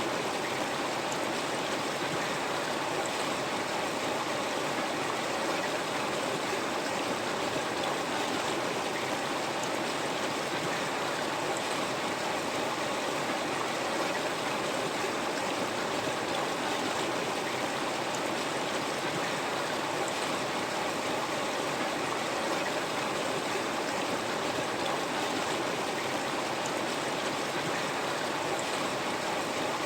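A river flowing: steady rushing and babbling water.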